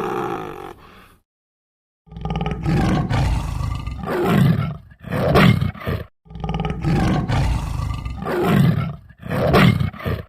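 Tiger roaring: a run of deep, rough roars and grunts starting about two seconds in, and the same run of roars playing again almost identically in the second half.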